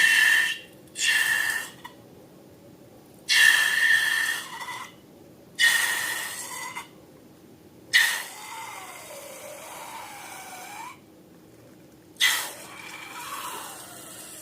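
Air rushing out of balloons in about six short hissing bursts, each starting sharply and fading. The two last releases carry a squealing pitch that wavers up and down.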